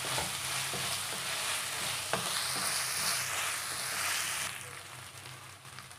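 Chopped onion, coriander and dry red chillies sizzling in hot oil in a nonstick kadai while being stirred, with a few light knocks of the spatula against the pan. The sizzle drops away sharply about four and a half seconds in.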